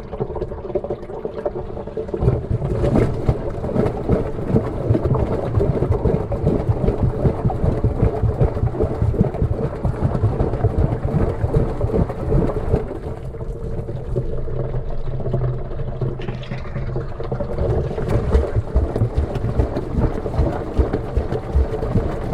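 Water sloshing and the load thudding around inside a washing machine drum as it turns, heard from a camera in its waterproof housing inside the drum, with a steady hum underneath. The churning and thuds go on without a break, easing a little about halfway through.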